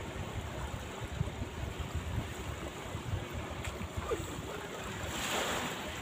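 Small waves washing onto a sandy beach, with wind buffeting the microphone in low gusts. A wave swishes up the sand louder about five seconds in.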